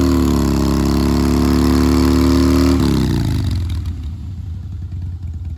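A vehicle engine held at high revs, then dropping back to a low idle about three seconds in.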